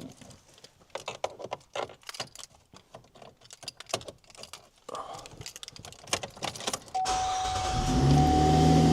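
Scattered light clicks and rattles, then about seven seconds in a GMC Acadia's engine starts and settles into a steady run. A thin steady high tone sounds along with it, after the purge valve solenoid has just been replaced.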